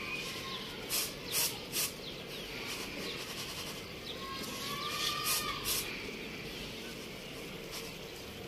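Uncooked rice swishing across a plate as it is shaken and sifted by hand, in short swishes about three at a time, twice.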